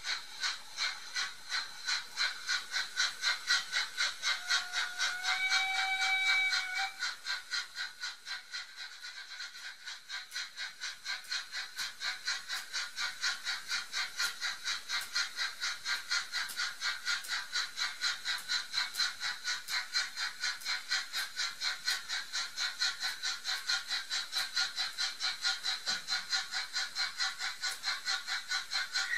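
Sound decoder of a Märklin HO T 18 model steam locomotive playing steady rhythmic steam chuffs through its small onboard speaker as the train moves off. A short steam whistle blast sounds about five seconds in.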